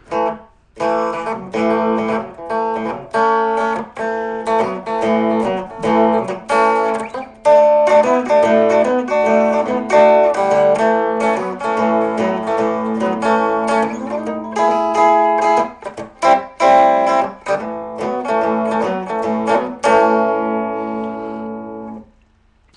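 Electric guitar played for a pickup sound check through cheap Chinese-made replacement pickups: picked single notes and chords over a low note that keeps ringing, stopping about a second before the end.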